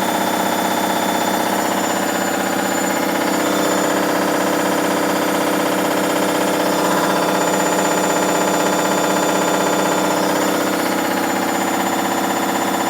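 Hoover Dynamic Next DXA 48W3 washing machine on its spin cycle, very noisy: a loud, steady mix of several pitched tones with a fast, even pulsing rattle. The owner is unsure whether this is a failing drum spider, worn bearings or too much laundry in the drum.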